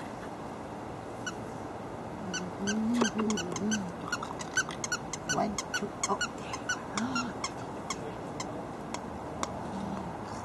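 Havanese puppies playing, giving a few short low grunting growls, most of them about two to four seconds in, amid many quick high squeaks.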